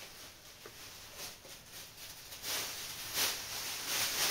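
Thin plastic bag rustling and crinkling as it is pulled off a bicycle frame, in irregular rushes that get louder after about halfway.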